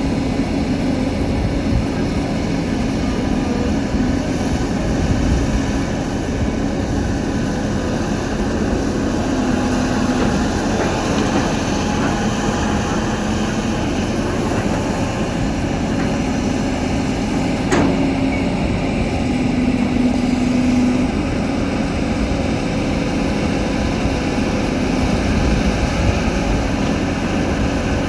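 CAT 320 hydraulic excavator's diesel engine running steadily under load, its drone shifting slightly in pitch as it works, with one sharp knock about two-thirds of the way through.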